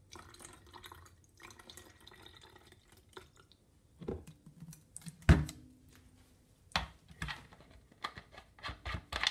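Cleaning solution poured from a plastic bottle into a spray mop's plastic tank, a faint glugging trickle for the first few seconds. Then plastic bottles and caps knock and clatter against each other and the counter, with the loudest, hollow knock about five seconds in.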